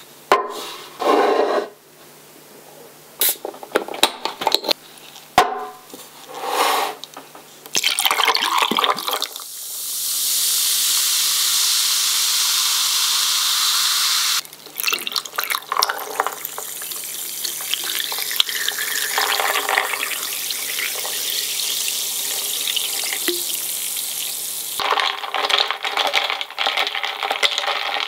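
Kitchen sink work: short knocks and clatter, then a tap running into a sink for about five seconds and shut off sharply, followed by a longer, rougher splashing hiss and more clatter near the end.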